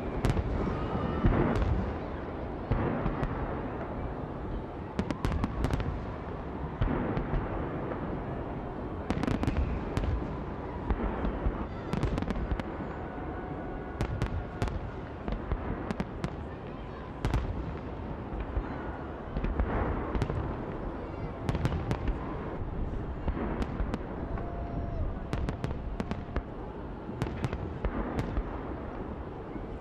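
Large aerial fireworks display: a continuous rumble of shell bursts with frequent sharp bangs and crackles overlapping throughout.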